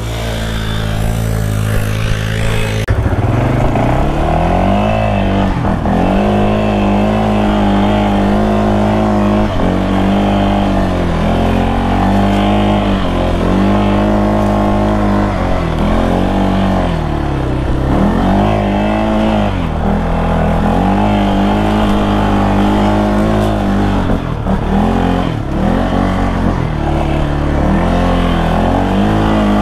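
Off-road vehicle engine revving up and falling back again and again, about every two seconds, as it works under load to climb over a rocky obstacle.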